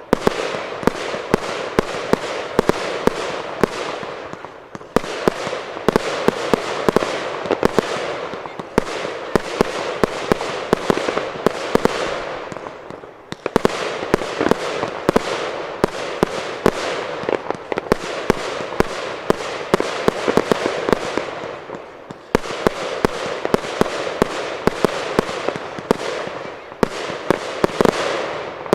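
Fireworks going off in a dense barrage of rapid bangs and cracks, easing briefly three times, about every nine seconds, before building again.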